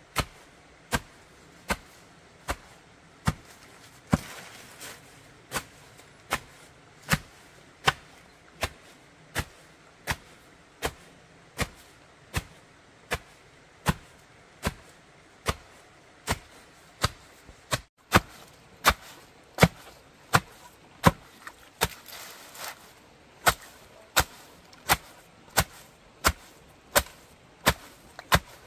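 Repeated chopping: sharp, even strikes about once every three-quarters of a second. They break off briefly about two-thirds of the way through, then carry on.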